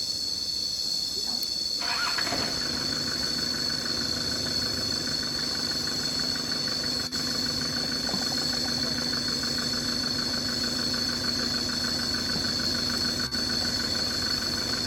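A vehicle engine starts about two seconds in and then idles steadily, over a continuous high-pitched insect drone.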